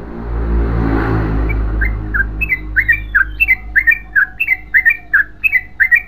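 Yellow-vented bulbul singing a long, fast run of short, bubbly notes that glide downward, about two or three a second, starting about two seconds in. Before the song, a low rushing sound with a steady hum fades out.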